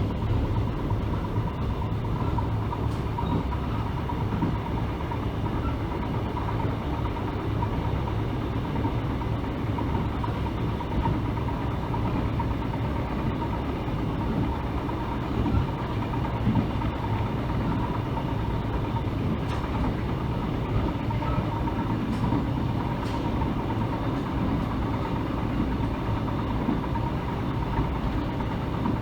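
Mugunghwa-ho passenger train running steadily, heard from inside the carriage: a continuous low rumble of wheels and running gear with a faint steady hum.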